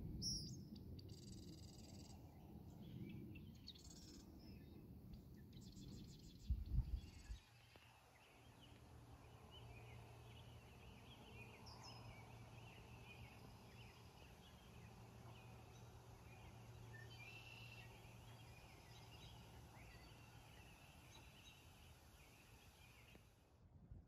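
Faint evening birdsong: scattered chirps and short trills from small birds. For the first several seconds wind rumbles on the microphone, with a strong gust near seven seconds. After that only a faint steady low hum lies under the birds.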